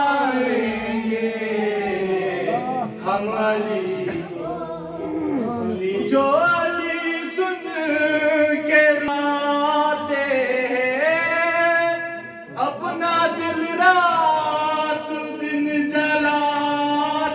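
Male voice singing a manqabat in praise of Imam Ali into a microphone, holding long drawn-out notes that slide up and down between phrases of the refrain.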